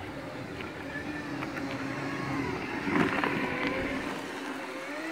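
Segway personal transporter's electric drive whining, its pitch sliding down and back up as the speed changes. Scattered clicks from the tyres run under it, and a brief louder rush of noise comes about three seconds in.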